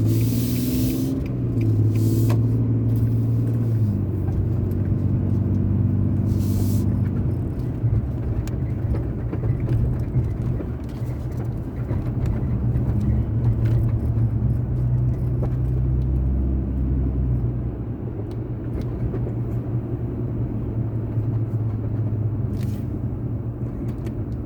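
Car engine and road noise heard from inside the cabin as the car pulls away and drives on, a steady low rumble with the engine note shifting over the first few seconds.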